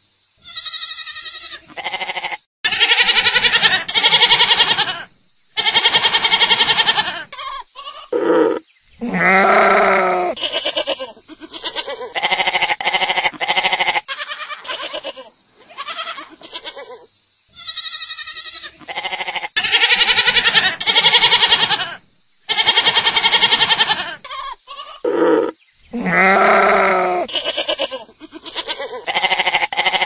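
Goats bleating over and over: a run of loud, quavering calls, each one to two seconds long, with short gaps between them.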